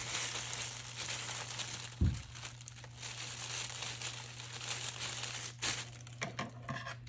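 Plastic oven bag around a turkey crinkling as hands handle it, with a soft thump about two seconds in.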